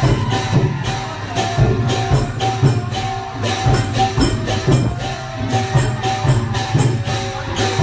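Lively procession music: drums and jingling, cymbal-like percussion beat a steady, brisk rhythm under a held melody note.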